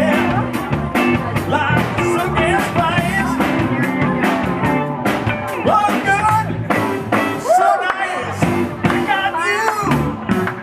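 Live rock band playing an upbeat rock and roll number, with drums keeping a steady beat.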